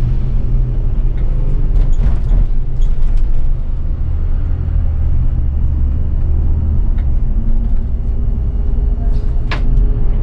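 City bus engine running with a heavy, steady low hum, heard from inside the bus, with a few scattered sharp knocks and rattles.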